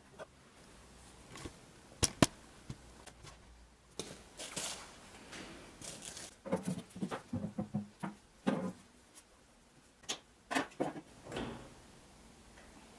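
Scattered clicks, knocks and rustles of metal parts being handled and fitted, with a pair of sharp metallic clicks about two seconds in as the loudest.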